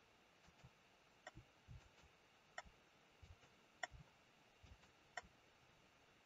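Faint computer mouse button clicks, four sharp ones spaced a little over a second apart, among softer low knocks.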